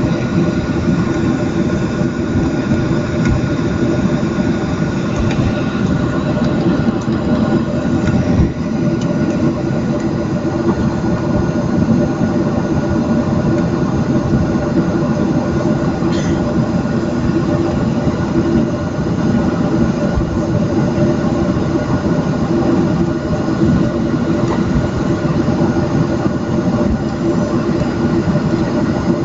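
Boeing 737-700's CFM56 jet engines heard from inside the cabin while the airliner taxis: a loud, steady rumble with several steady whining tones over it.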